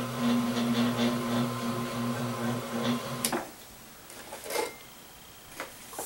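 Treadmill incline linear actuator's small electric motor (rated 1/12 horsepower) running with a steady hum as it drives the press ram, then stopping about three seconds in. A few light knocks and clicks follow.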